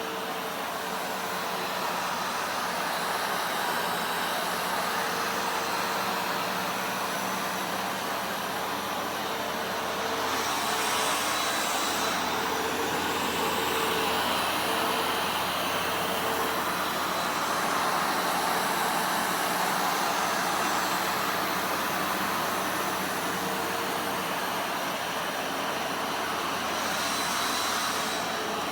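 Upright vacuum cleaner running steadily, a constant motor whine over rushing air, the hiss changing briefly about ten seconds in and again near the end as it is pushed across the floor.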